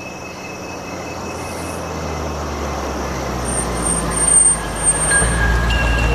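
Low rumbling drone that slowly swells and grows louder, with steady high tones held over it and a flickering high tone in the middle: a suspense soundtrack drone over a dark, empty room.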